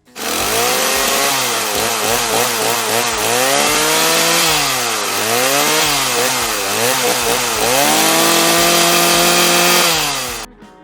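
Chainsaw revved up and down repeatedly, its pitch rising and falling many times, then held at high revs for about two seconds before cutting off suddenly near the end.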